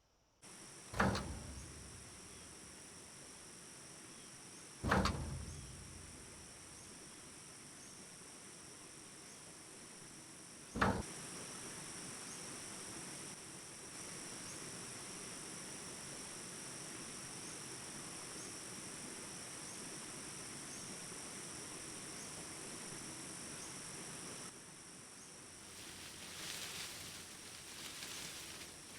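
Steady high-pitched insect chorus, like crickets trilling, with three loud thumps, the first at about a second in, then at about five and eleven seconds. A steady rushing noise runs under the chorus from about eleven seconds in and drops away at about twenty-four seconds.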